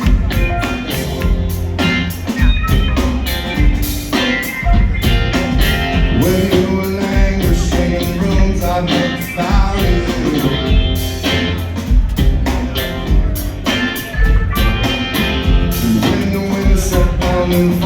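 Live rock band playing loud, with guitar over heavy bass and drums keeping a steady beat.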